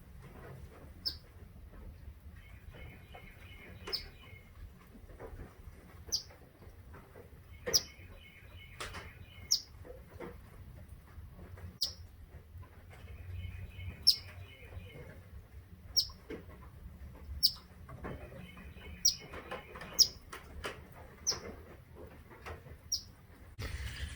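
A small bird giving single sharp chip notes about every one to two seconds. Now and then a softer, rapid chattering call sounds between them.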